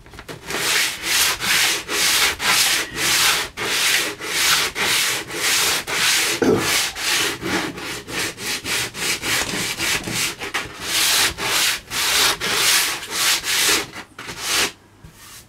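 Coarse 60-grit sandpaper rubbed by hand over pallet wood in quick back-and-forth strokes, about two to three a second, stopping near the end.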